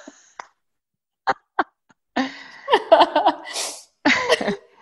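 A woman chuckling and breathing out, voiced and breathy, after two small clicks, before she answers.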